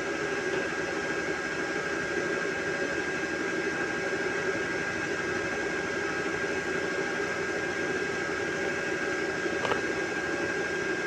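Stick-welding arc from a 1/8-inch 7018 electrode at 100 amps on a steel beam, a steady crackling hiss with a thin high whine under it. A single click comes near the end.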